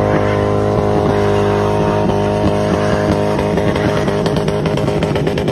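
A motor vehicle engine running steadily.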